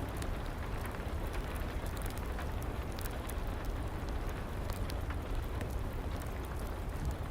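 Steady rain with a wood fire crackling in a fireplace: an even hiss and low rumble, with scattered sharp pops and crackles.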